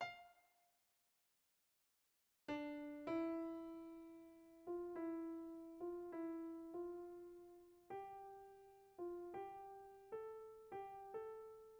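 Background piano music: a slow melody of single notes, each struck and left to fade, edging upward in pitch, after a short gap of complete silence a couple of seconds in.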